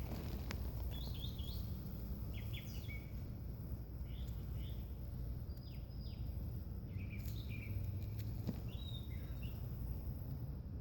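Small birds chirping in short, scattered calls over a steady low background rumble, with a few light clicks.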